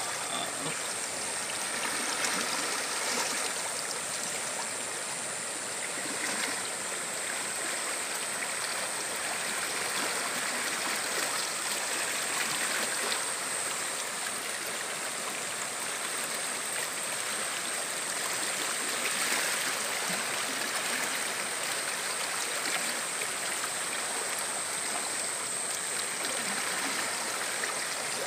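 Muddy floodwater rushing down a swollen river in a steady, churning rush.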